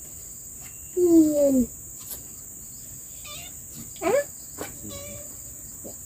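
Steady high-pitched chorus of forest insects, with two short high-pitched vocal sounds over it, one falling in pitch about a second in and one rising about four seconds in, and a few light clicks.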